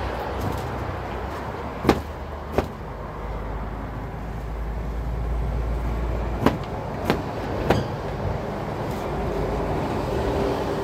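Five sharp knocks of wooden beehive boxes and boards being handled, two close together about two seconds in and three more a little past the middle, over a steady rushing background.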